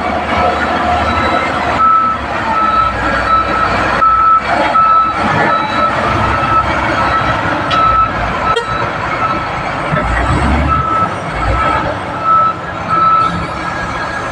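Bulldozer's diesel engine running with its reversing alarm sounding a steady, evenly repeated beep.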